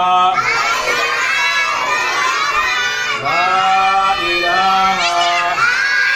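A group of children reciting aloud in unison, a loud sing-song chant of drawn-out phrases repeated without pause.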